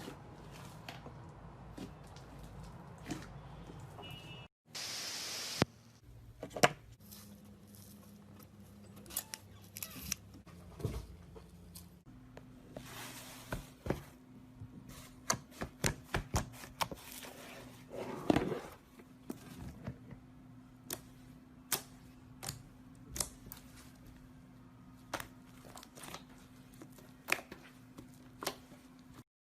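Slime being squeezed and stretched by hand, giving a run of irregular sharp clicks and pops. There is a short hiss about five seconds in.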